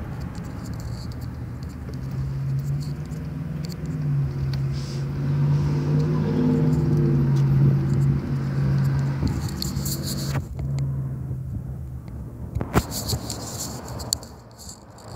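A low, steady motor-like hum, strongest through the middle, with scattered faint clicks and one sharp click near the end.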